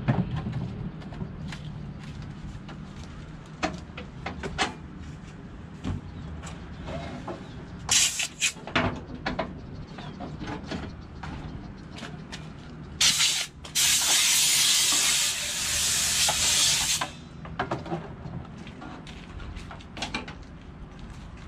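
Scattered metal clinks and knocks during work on a truck's hydraulic oil tank, with a short blast of pressurised spray about eight seconds in and a longer steady hiss of about four seconds past the middle.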